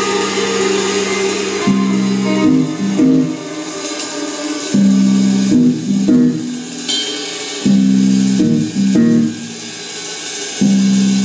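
Live band playing amplified: electric guitars over a drum kit with cymbals. A riff repeats about every three seconds, each time opening with loud low notes.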